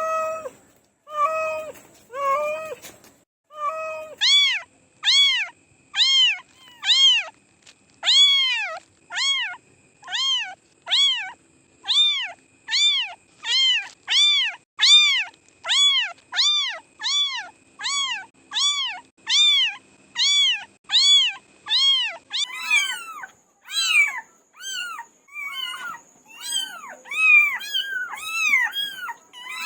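Cats meowing over and over, about one meow a second, each call rising then falling in pitch. Lower-pitched meows come in the first few seconds, then a long run of higher-pitched ones. Near the end the meows come quicker and overlap.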